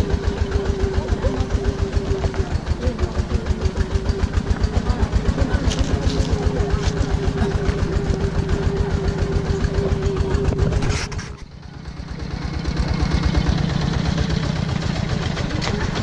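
The single-cylinder diesel engine of a two-wheel walking tractor chugging steadily with rapid, even beats, heard from the trailer it is pulling, with a steady whine over it. About eleven seconds in the sound briefly drops away, then the chugging carries on.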